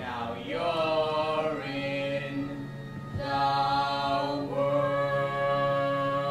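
Singing with a steady sustained backing: a sung phrase slides up and down in pitch over the first second and a half, then long held notes from about three seconds in to the end.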